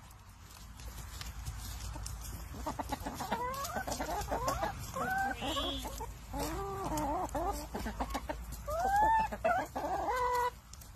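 Several hens clucking as they feed, with short calls that rise and fall in pitch. The calls start about three seconds in and are loudest near the end, over a low steady rumble.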